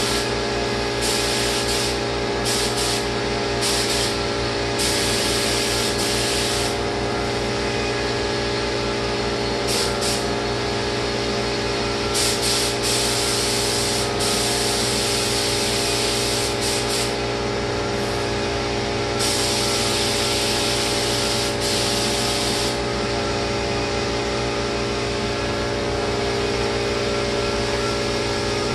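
Spray gun hissing in repeated bursts of one to three seconds as lacquer is sprayed, over the steady hum of the sprayer's pump. The hissing stops about two-thirds of the way through, leaving only the hum.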